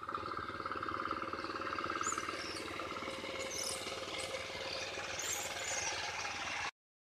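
Small single-cylinder engine of a walk-behind power weeder running steadily while it tills between maize rows. The sound cuts off suddenly near the end.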